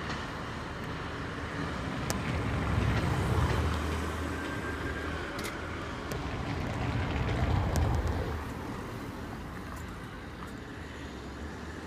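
Low, steady rumble of a freight train pulling away behind an Irish Rail class 071 diesel locomotive (EMD V12 two-stroke engine), swelling twice, mixed with road traffic.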